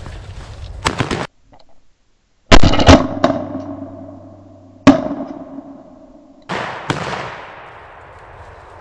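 Shotgun shots in the woods: a handful of sharp reports, the two loudest about two seconds apart near the middle, each trailing off in a long fading echo.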